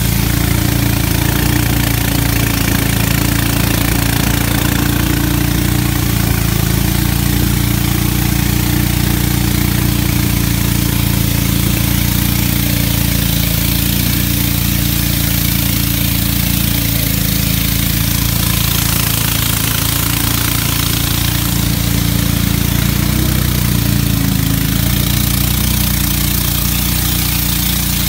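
Engine of a long wooden river boat running steadily at cruising speed, holding one pitch, with the hiss of water rushing past the hull.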